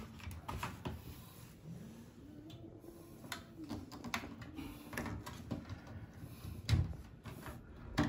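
Scattered plastic clicks and taps as the drain pump filter cap and its small hinged access cover at the base of a front-load washing machine are handled and fitted back, with one heavier knock near the end.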